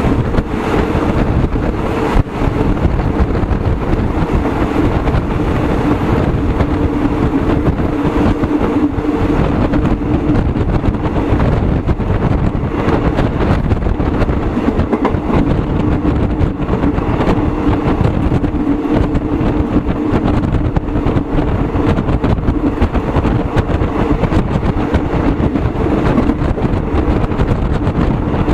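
Steady running noise of a moving vehicle: a constant low rumble with a steady two-note hum, unbroken throughout.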